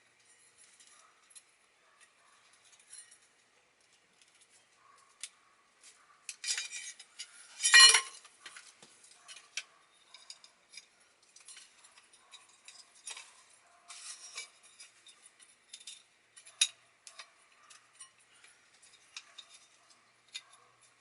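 Scattered clicks and metallic clinks of small metal parts being handled while an old Chevy steering column is taken apart, with one loudest ringing clink about eight seconds in.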